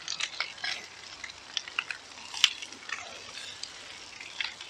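Whole gilthead sea bream frying on an oiled plancha, sizzling steadily with irregular spitting crackles as the freshly added marinade hits the hot plate. A single sharp click about halfway through.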